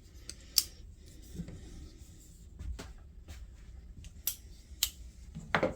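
Scattered light clicks and taps of folding pocketknives being handled and swapped, metal and handle scales knocking lightly, over a faint low hum.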